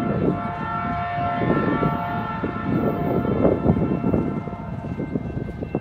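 Distant CN freight locomotive's air horn sounding one long, steady chord of several tones, fading slightly near the end, over a low, irregular rumble.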